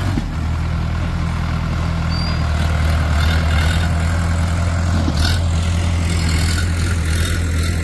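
Diesel farm tractor engine running steadily as it tows a trailed mud-mixing machine, with a low, even hum. A brief click comes about five seconds in.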